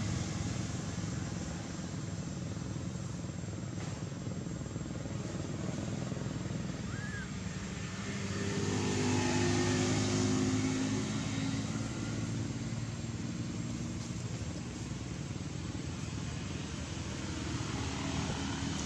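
Steady outdoor rumble of traffic, with a motor vehicle passing about eight seconds in: its engine swells in loudness and pitch, then falls away by about eleven seconds in.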